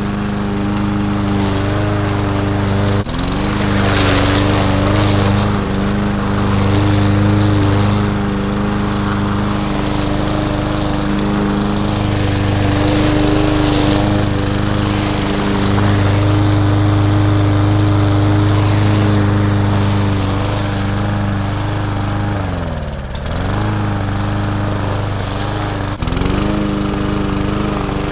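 Walk-behind rotary lawnmower's small single-cylinder engine running steadily under load while cutting tall grass and weeds. About 23 seconds in, its pitch drops sharply and then recovers as the engine slows and picks back up.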